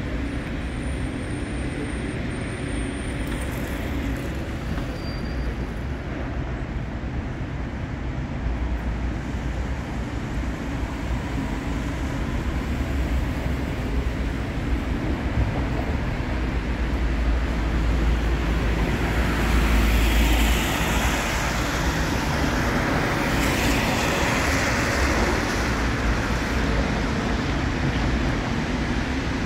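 City street traffic: a steady hum of cars driving past, swelling as vehicles pass close and loudest about twenty seconds in.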